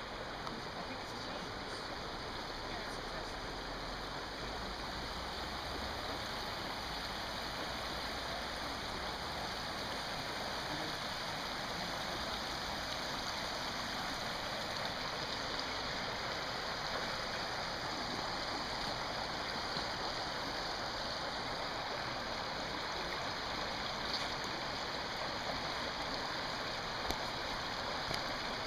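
Stream water rushing over rocks in a steady, even rush that grows a little louder as it goes, with a couple of small clicks near the end.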